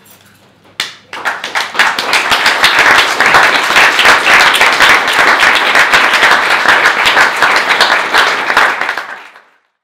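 Audience applauding: a first clap just under a second in, then dense, steady clapping of many hands that dies away near the end.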